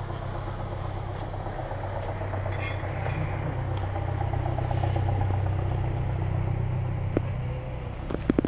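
A steady, low motor hum that grows a little louder toward the middle, with a few sharp clicks near the end.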